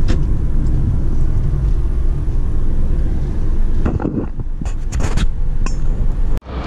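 Road noise of a car driving downhill, heard from inside the car: a steady low rumble of engine and tyres with wind noise. A few short knocks come about four to five seconds in, and the sound cuts off abruptly just before the end.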